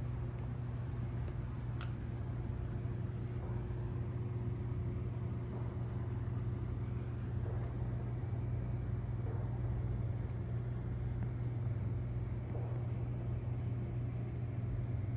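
A steady, unchanging low drone of a motor vehicle, with a strong deep hum and a couple of faint clicks.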